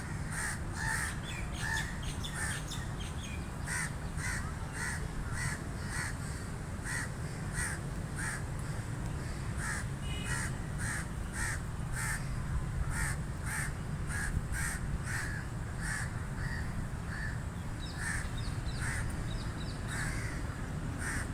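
Crows cawing over and over, short harsh calls coming about once or twice a second, over a steady low background rumble.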